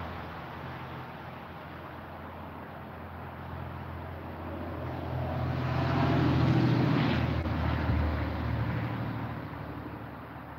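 A motor vehicle driving past on the road: its engine and tyre noise build up, peak a little past halfway and fade away, while the noise of an earlier car dies down at the start.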